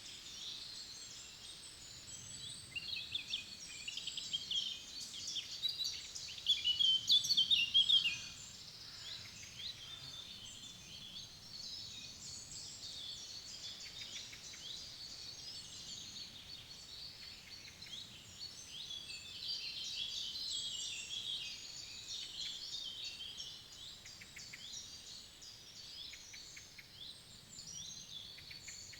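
Several forest songbirds singing and chirping together, a dense chorus of short high notes and trills, loudest in the first eight seconds and thinner afterwards, over a faint low background rush.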